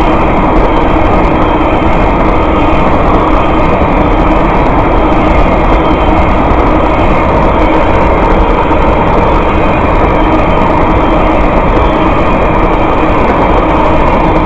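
Freight train tank cars passing close by at speed: a loud, steady rumble of steel wheels running on the rails.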